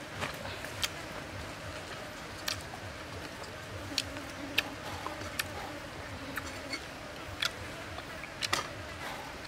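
Eating sounds from a whole roasted chicken: meat and crisp skin torn apart by hand and chewed, heard as scattered short, sharp clicks and smacks over a steady background hiss.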